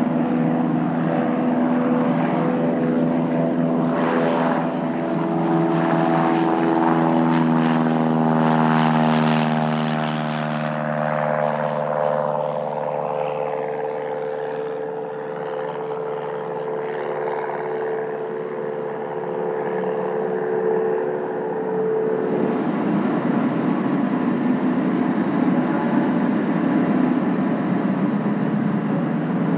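Cessna 172S Skyhawk SP's four-cylinder piston engine and propeller climbing out past the camera. Its steady drone is loudest about nine seconds in and then slowly falls in pitch as it moves away. About 22 seconds in it cuts suddenly to a Cirrus SR20's engine and propeller on the runway, a rougher, noisier sound.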